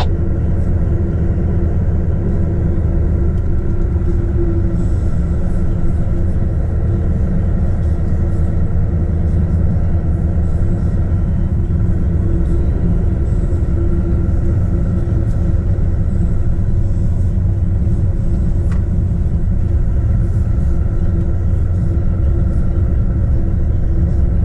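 Heavy truck driving at a steady speed on a snowy road: a constant low engine drone and road rumble that holds the same pitch and level throughout.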